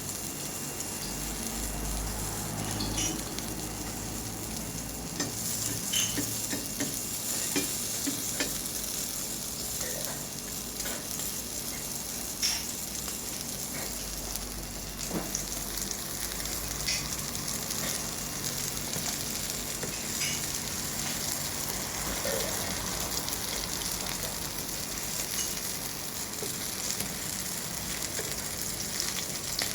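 Food frying in oil on a hot pan: a steady sizzle, with frequent short clicks and scrapes of a utensil against the pan as it is stirred.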